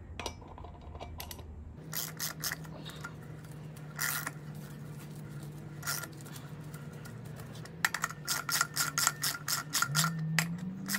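Hand socket ratchet clicking as it runs down the rear sprocket bolts on a motorcycle wheel: short scattered runs of clicks, then a quick dense run of clicks near the end.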